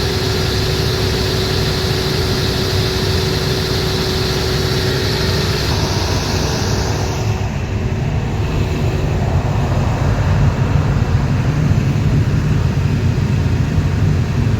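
Cummins 750 kVA diesel generator set running steadily with a deep, even rumble and a constant hum; a high rushing hiss over it fades about halfway through.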